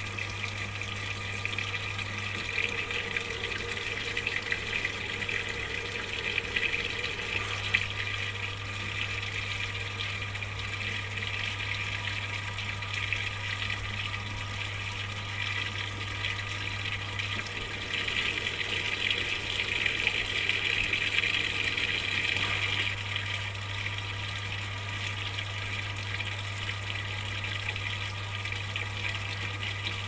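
Samsung top-loading washing machine filling with water at the start of its rinse cycle: water pouring steadily into the drum, over a steady low hum. The pouring grows louder for a few seconds near the start and again about two-thirds of the way through.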